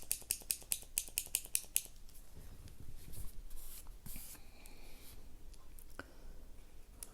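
Sumogrip mechanical pencil's push button clicked about a dozen times in quick succession to feed out the newly loaded Pentel high-polymer lead. Then the lead scratches softly across paper in short strokes as it writes.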